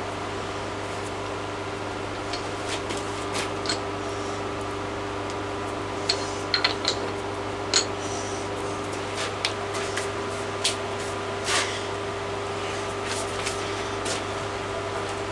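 Vertical milling machine running with a steady hum, with a few light clicks and taps from a brush and small metal parts on the machine table in the middle.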